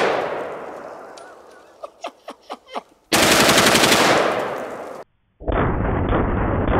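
Full-auto fire from a CMMG MkW-15 rifle chambered in .458 SOCOM. The end of one burst echoes away, a few light clicks follow, then a second burst of about a second rings out and echoes away. Near the end, after a brief cut, comes a duller, muffled run of rapid thumps.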